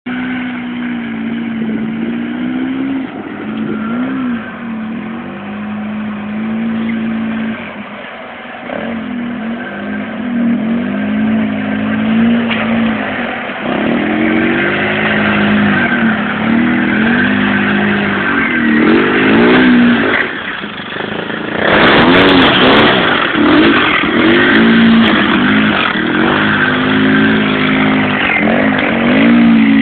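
Polaris RZR 800 side-by-side's engine running under load, its pitch rising and falling again and again as the throttle is worked. About two-thirds of the way in, a loud rushing noise joins the engine.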